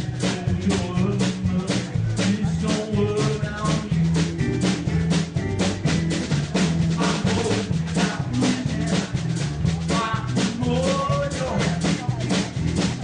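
Blues band music: a drum kit keeping a steady beat under a stepping bass line, with a wavering lead melody over it.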